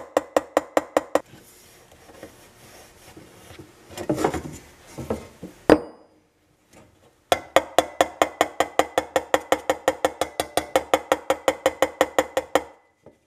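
Small body hammer tapping dents out of a stainless steel car trim strip laid over a dolly. It gives quick, light metallic taps with a ringing note, about six a second: these are fine finishing taps. The tapping stops a second in, a few handling clicks and rustles follow, and it resumes for about five seconds before stopping shortly before the end.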